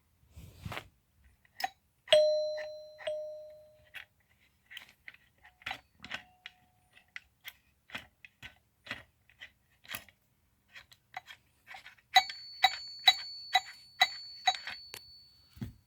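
A doorbell strikes one tone about two seconds in and rings out for about two seconds, then a series of short clicks follows. About twelve seconds in, a doorbell rings in quick repeated strikes over a steady high tone for about three seconds.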